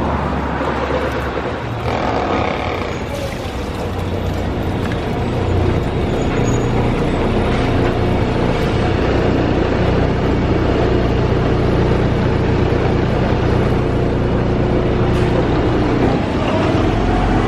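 Street traffic, with a motor vehicle's engine running close by in a steady low drone.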